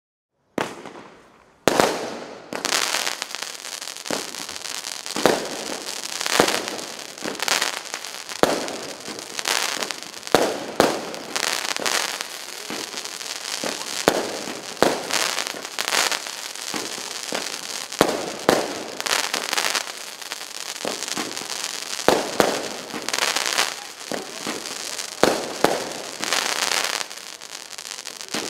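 A Rubro Juggling Bouncer 15-shot consumer fireworks cake firing, starting about half a second in. A long string of sharp launch and burst bangs comes every second or two, over dense crackling from the crackling-tail comets and bouquets.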